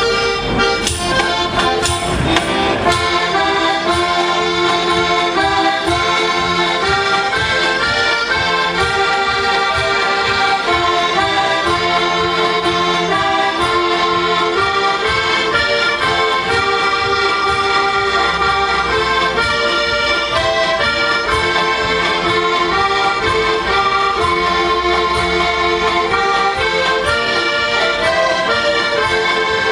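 Ensemble of six heligónky, Slovak diatonic button accordions, playing a lively traditional folk tune together, melody and chords over a steady, pulsing bass.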